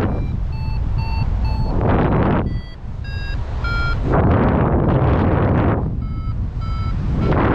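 Paragliding variometer beeping in three quick runs of short tones, its pitch changing from run to run: the climb tones that signal rising air. Heavy wind noise on the microphone sets in between the runs and drowns them.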